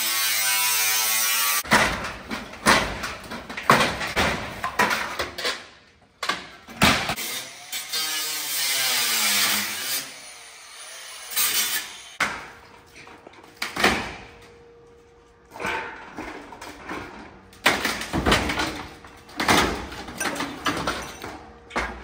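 A handheld power tool running in short spells on sheet-steel building siding, with many sharp knocks and rattles of the loose steel panels between.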